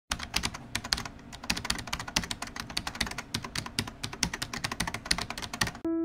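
Rapid keyboard typing: many quick, irregular clicks. Just before the end, a piano begins to play.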